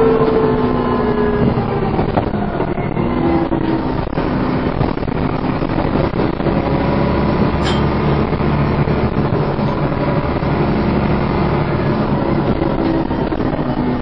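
Dennis Trident 2 double-decker bus heard from inside the lower deck while under way, driven hard. The engine and driveline run with the whining 'hoover' note, its pitch rising and falling with the revs, over a steady low road rumble.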